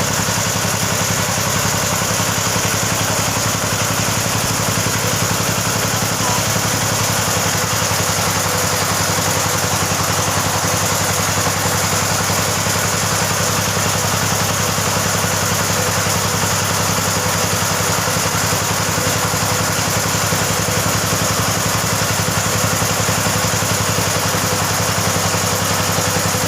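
The engine of a motorised well-drilling rig running steadily at a constant speed.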